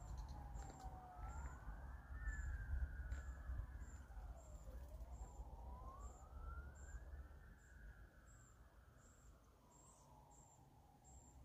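Distant emergency-vehicle siren wailing, its pitch slowly falling and rising several times and fading toward the end, over a low rumble of wind.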